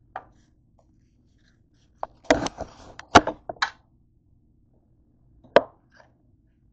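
Knife chopping through boiled potatoes onto a hard counter, heard as sharp knocks: one at the start, a quick run of about five between two and four seconds in, and one more near the end.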